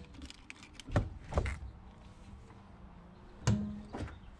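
Ignition key and toggle switches on an old car's dashboard being worked: a few sharp clicks and knocks, about a second in and again around three and a half seconds, with quieter handling noise between.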